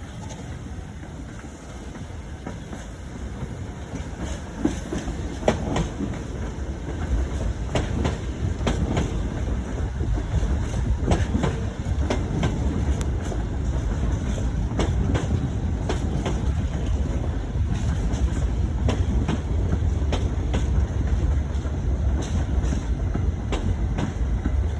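New York City subway train pulling into a station. Its low rumble builds over the first several seconds and then holds, with the wheels clacking over rail joints again and again.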